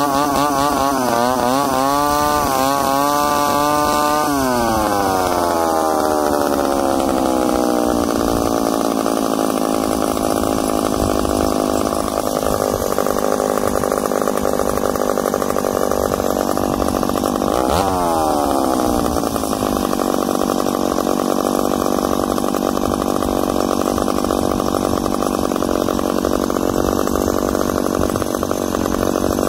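Ported McCulloch Super Pro 70 two-stroke chainsaw, fitted with an electronic ignition module in place of points, revved high, then winding down slowly over several seconds to a steady idle. A quick throttle blip about 18 seconds in is followed by another slow fall back to idle. The owner says the slow return to idle is not an air leak but the heavy flywheel, crankshaft and clutch taking a while to slow down.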